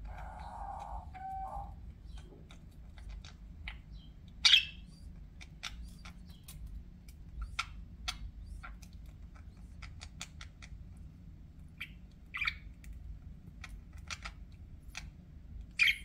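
Pet budgerigars: three loud, short, high squawks, about four and a half seconds in, about twelve seconds in and at the very end, over many small scattered clicks and ticks, with a lower buzzy call in the first second and a half.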